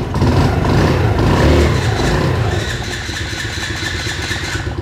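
A motorcycle engine revving, then settling to a steadier, quieter idle about halfway through.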